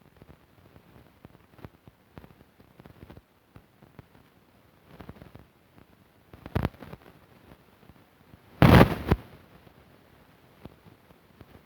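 Handling noise: scattered light clicks, a short bump about six and a half seconds in, and a louder half-second bump or rustle about two-thirds of the way through.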